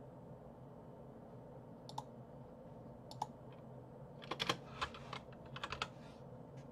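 Computer keyboard keystrokes: two single clicks, then a quick run of key presses about four seconds in, over a faint steady low hum.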